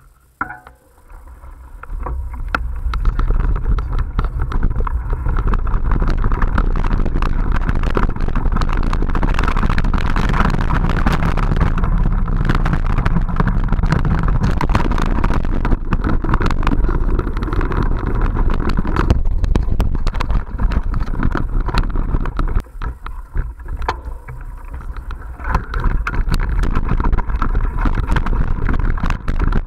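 Wind buffeting the microphone and the clatter of a mountain bike rolling fast over a rough dirt trail, starting about two seconds in as the ride sets off. The noise dips briefly about two-thirds of the way through, then picks up again.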